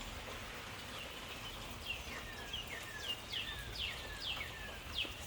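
Songbirds singing in the rain: a run of short, high chirps, each sweeping down in pitch, starting about a second in and repeating roughly twice a second over the steady hiss of falling rain.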